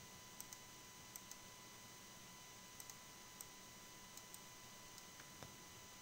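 Faint computer mouse clicks, several of them in quick press-and-release pairs, over near-silent room tone with a faint steady hum.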